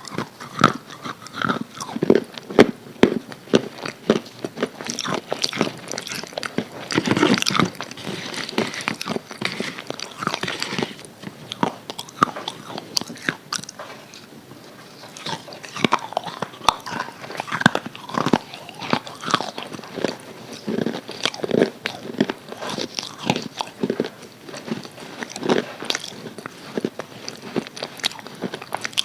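Crispy KFC fried chicken being bitten and chewed close to the microphone: irregular crackling crunches with wet chewing between bites, thickest a few seconds in and easing off briefly around the middle.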